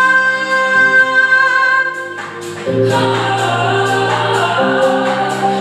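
Girl's voice singing a song with live vocals over a backing track: she holds one long note that ends about two seconds in. After a short drop in level the music comes back fuller, with sustained chords and a strong low note.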